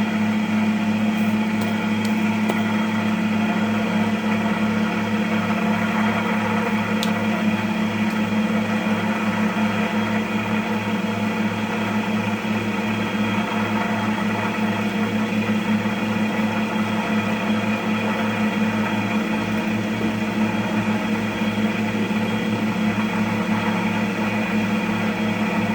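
Cotton candy machine running steadily with an even motor hum, its spinning head turning while it heats up before sugar is added.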